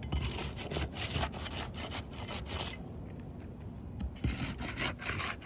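Crowbar being worked under asphalt roof shingles to break their adhesive seal strips: rasping, scraping strokes of metal against shingle grit. The scraping comes in two bouts with a quieter pause of about a second and a half between them.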